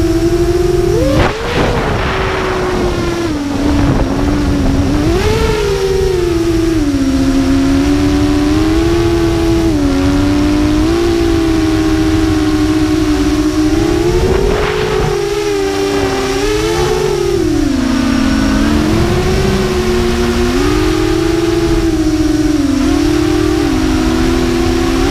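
FPV racing drone's electric motors and propellers whining steadily, several close pitches rising and falling together as the throttle changes, over wind rush on the microphone. Brief louder rushes come about a second in and again about midway.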